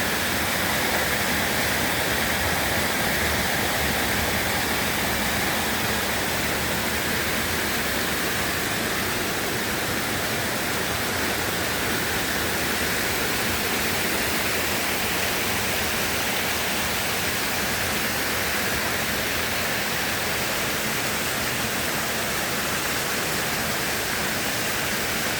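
Stream water pouring steadily down a small waterfall: an even, unbroken rush.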